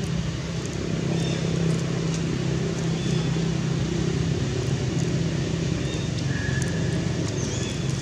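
A steady low motor hum, like an engine running, with a few faint short high chirps.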